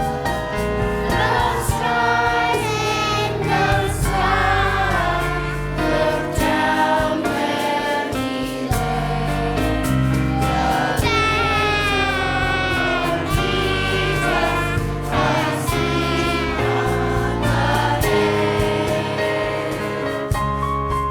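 A choir singing a song with instrumental accompaniment, with sustained low notes underneath.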